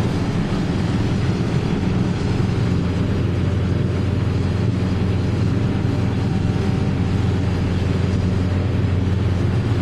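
Steady low drone of a Ford 8970 tractor pulling and driving a four-row forage harvester, heard from inside the tractor cab.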